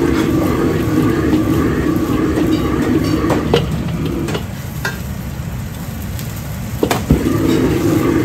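Noodles frying in a wok over a gas wok burner's steady rush, with several sharp clacks of a metal ladle striking the wok. The burner's low rush drops away for a few seconds past the middle and comes back near the end.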